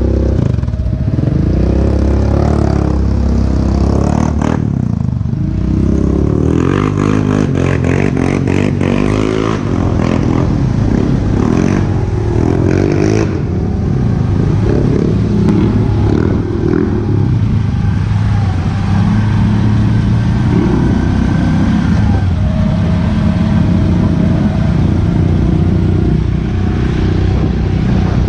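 ATV engine running under way, its pitch rising and falling with the throttle, with bursts of clatter about six to ten seconds in.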